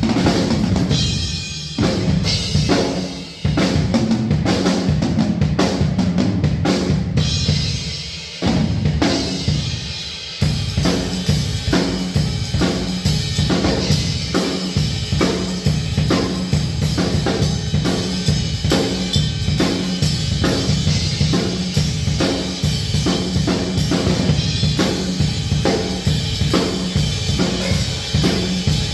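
DW Santa Monica Collector's Series four-piece drum kit with freshly fitted Evans heads and Sabian AAX Xplosion cymbals being played. The first ten seconds are broken fills with short gaps, and from about ten seconds in the kick, snare and cymbals settle into a steady beat.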